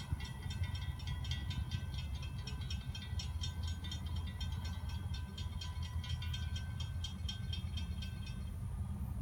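Freight train passing: a steady low rumble under a rapid, regular metallic clicking of about four beats a second, which stops shortly before the end.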